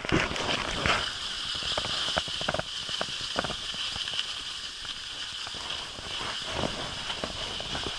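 Steady hiss of skis sliding over snow, with irregular crunches of steps in the snow scattered through it.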